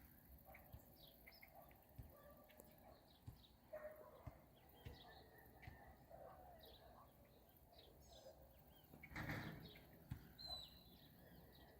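Faint outdoor ambience with small birds chirping and tweeting in short scattered calls, and a brief rush of noise about nine seconds in.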